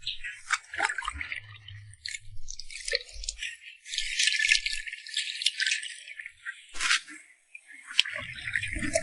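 Tomatoes being washed by hand in water: irregular splashing and rattling.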